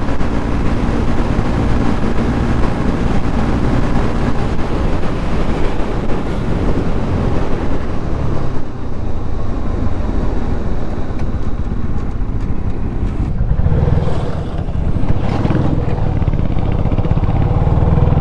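Motorcycle engine running while riding, with rushing wind noise on the microphone; the engine's low hum grows stronger in the last few seconds.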